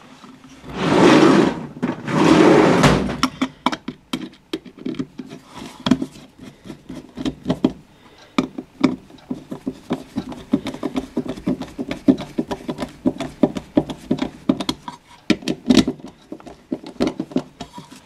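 Screwdriver driving the small screws of a metal switch-box cover plate: a long run of small clicks and scrapes, with a sharper click near the end. Near the start come two louder scraping rubs, each about a second long.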